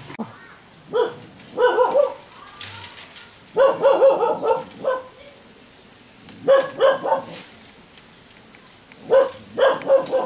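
A dog barking in short runs of a few barks, repeated about every two to three seconds.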